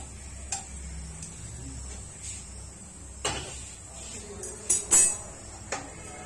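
Kitchen clatter: a few sharp knocks and clinks of utensils against a metal cooking pan, the loudest a pair about five seconds in, over a steady low hum.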